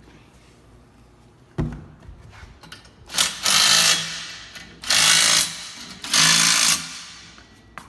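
A power impact driver run in three bursts of about a second each, tightening nuts on the hitch hardware, after a single knock of metal.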